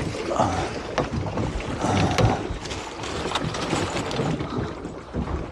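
Wind buffeting the microphone and sea water washing against the drifting boat's hull, with a few sharp clicks and knocks from handling gear on board.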